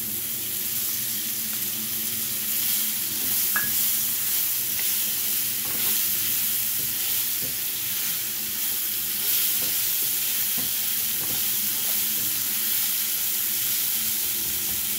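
Browned beef and freshly added sliced red onions sizzling in oil in a non-stick frying pan, stirred with a plastic slotted spatula that scrapes and taps lightly against the pan.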